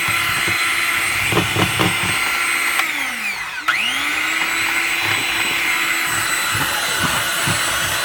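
A motor running with a steady whine and several high tones. About three and a half seconds in, its pitch dips sharply and climbs back up.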